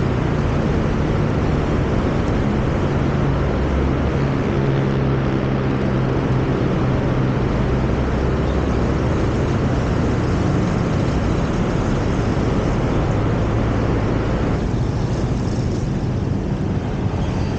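A car driving on city roads: steady engine hum under road and tyre noise. The higher hiss quietens about fifteen seconds in.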